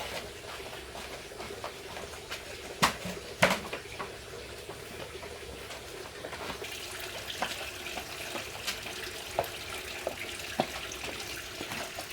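Running water, steady throughout, with scattered small clicks and two sharper knocks about three seconds in.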